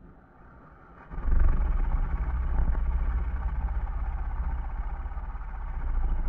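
Battery-powered snoring beetle toy sounding its snore on nearly flat batteries, which comes out as a low, rough rumble. It starts suddenly about a second in and holds.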